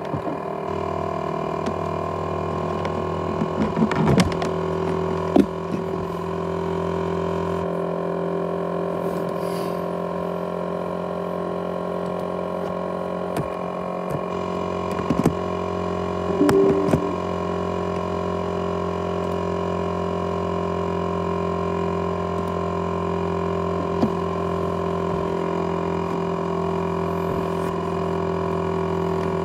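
ASUS X543UA laptop's cooling fan running steadily and loud, with a constant whine of several tones over a rushing noise; the owner likens it to a jet engine on the broken-down laptop. A few short clicks come about four to five seconds in and again around fifteen to seventeen seconds.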